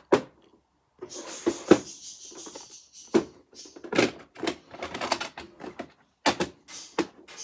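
Hard plastic VHS clamshell case being handled on top of a VCR: a string of sharp clicks and knocks as it is set down, snapped open and the cassette inside touched, with a scraping rustle of plastic about a second in.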